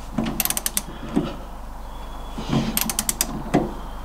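Wrench ratchet head clicking in two quick runs of clicks, each followed by a knock, as the bolts of an MGB front lever arm damper are tightened.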